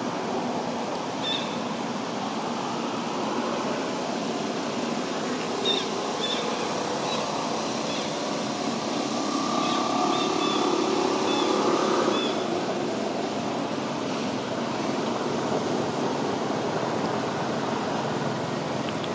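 Steady outdoor background noise that swells around ten to twelve seconds in, with a few short high chirps scattered through the first half.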